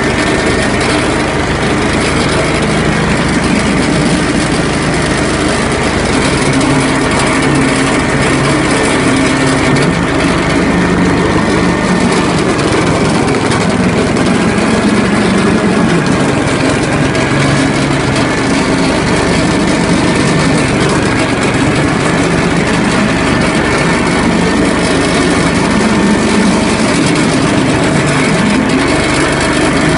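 ZID-4.5 single-cylinder engine running steadily, turning the screw cone of a log splitter while logs are pushed onto the cone and split.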